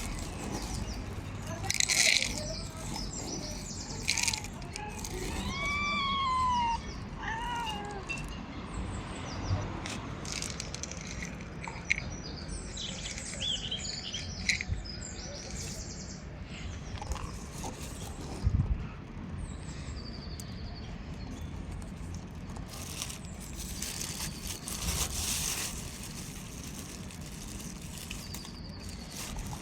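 Street cat meowing, one drawn-out meow that rises and falls about six seconds in and a shorter one right after, amid scattered short clicks and taps.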